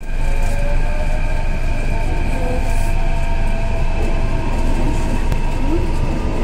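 Delhi Metro electric train running, heard from inside the carriage: a steady low rumble of wheels on track with several steady high electric tones over it.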